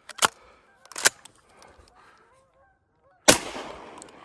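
Flushing geese honking, with two sharp knocks early on, then a single loud shotgun shot about three seconds in that rings out and fades.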